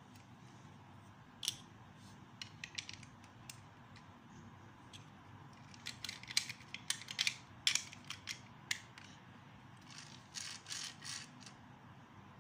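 Plastic Lego bricks clicking and rattling as they are pressed and snapped together by hand: a few scattered clicks early, a dense flurry of clicks in the middle, and a shorter run near the end.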